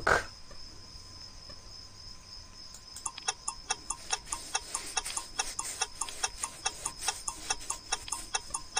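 Clock-style ticking sound effect of a quiz countdown timer: a fast, even run of ticks that starts about three seconds in. Before it there is only a faint steady hiss.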